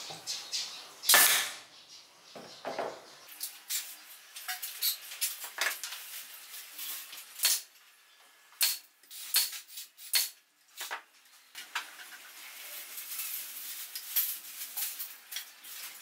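Pneumatic nail gun firing nails into thin wooden roof slats: many sharp shots at irregular intervals, from half a second to a few seconds apart, the loudest about a second in.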